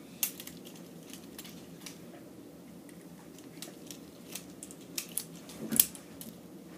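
Hard plastic construction-toy pieces clicking and clacking as they are handled, with scattered sharp clicks and a cluster of louder ones about five to six seconds in.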